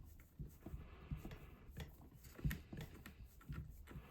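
Faint, irregular light clicks and taps of a small box wrench on an M3 nylon lock nut as it is tightened onto a shock mount, with a slightly louder tap about two and a half seconds in.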